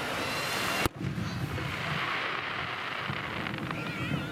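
Surf washing on the beach with wind on the microphone, broken about a second in by one sharp bang of a bursting firework shell. Voices start to come through near the end.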